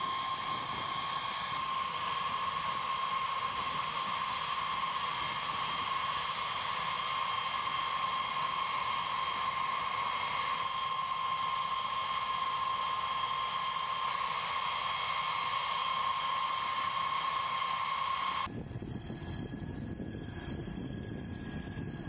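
B-52H Stratofortress's TF33 turbofan jet engines running at idle on the ground: a steady, high whine over a rushing hiss. About eighteen seconds in, the whine cuts off abruptly and a lower engine rumble takes over.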